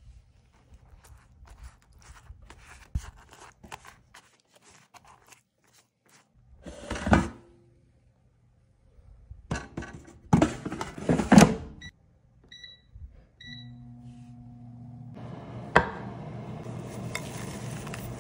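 Faint dabbing of a silicone brush spreading garlic butter on slider buns, then several loud knocks as the basket is handled and pushed into a Gourmia air fryer. The fryer beeps twice as it is set, then its fan starts with a steady hum and hiss.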